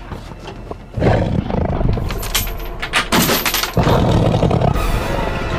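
Film soundtrack: a werewolf roaring, mixed with gunfire from the soldiers' guns, starting loud about a second in with a run of shots in the middle.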